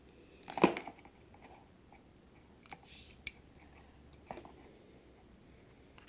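Handling noise from a small APRS tracker and its cable being handled and fitted with its antenna: a sharp knock about half a second in, then a few faint clicks and a rustle.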